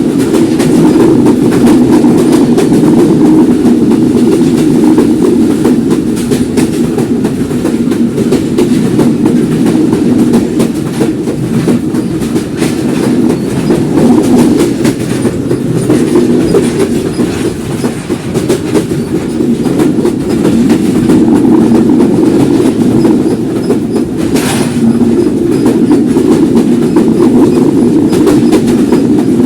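Simanta Express passenger train running on the rails: a loud, steady rumble of wheels on track, with one brief sharp clank near the end.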